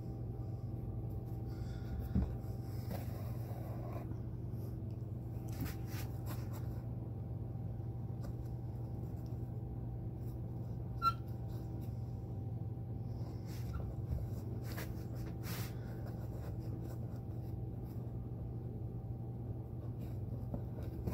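Hand-sewing the toe seam of a Red Wing moc-toe leather boot: scattered scratchy pulls of thread and needle drawn through the leather, with a light knock a couple of times, over a steady low hum.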